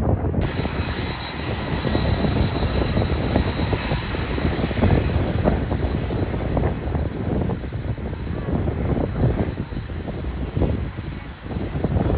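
Airliner engines running, with a steady high whine that comes in suddenly about half a second in, over a gusty low rumble of wind on the microphone.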